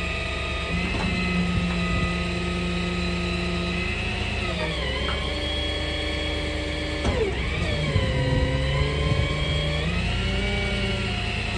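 Tow truck's engine running while its hydraulic boom and sling are worked. Its pitch dips and recovers a few times, about five and seven seconds in and again near the end, with a few light knocks of the sling's chains and arms moving in between.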